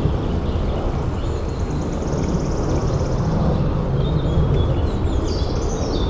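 Steady low rumbling background noise outdoors, with a bird's rapid, evenly pulsed trill about two seconds in and a few short bird chirps near the end.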